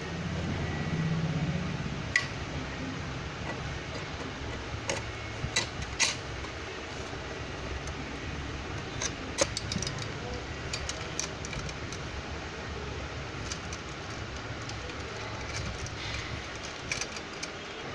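Scattered light metal clicks and taps of a chrome tricycle handlebar being fitted into its steering-tube clamp and the clamp bolt being handled, over a steady background hum. There is a low rumble in the first couple of seconds.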